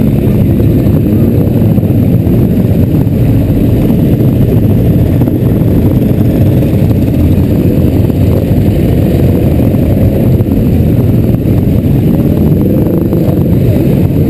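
Motorcycle engines running at low parade speed, the rider's own Yamaha XJ among a group of bikes close by: a steady low rumble without a break, heard from a helmet-mounted camera.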